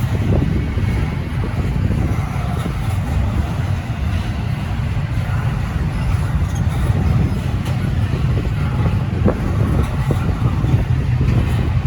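Cars of a slow intermodal freight train rolling past in a steady low rumble, with wind buffeting the microphone.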